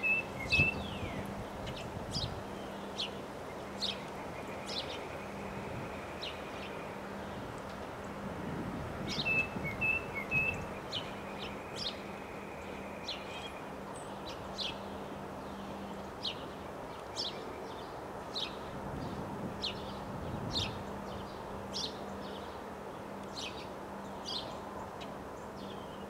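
Small birds chirping repeatedly over a steady rush of wind that swells in gusts near the start, about a third of the way in and again later. A faint steady low hum runs underneath.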